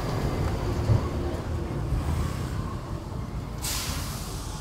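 Steady low rumble of outdoor street-market background noise, with a brief burst of hiss about three and a half seconds in.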